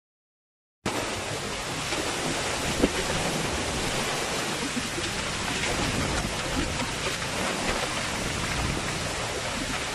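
Typhoon wind and driving rain: a steady, dense rush of storm noise that starts abruptly about a second in, after silence.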